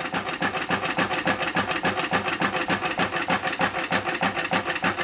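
Homemade Stirling engine with a rubber diaphragm running, a rhythmic rubbing and scraping at about four strokes a second that sounds really sad. The scraping comes from the aluminium-can displacer rubbing and crunching inside, which the builder takes for a can crushed after overheating.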